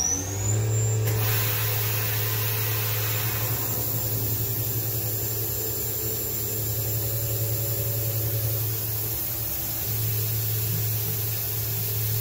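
Grizzly G0704 hobby mill converted to CNC, running: the spindle turns at speed with a high steady whine, a coolant spray starts hissing about a second in, and a low steady hum from the table drives breaks off briefly about nine seconds in as the table moves the aluminium extrusion under the tool.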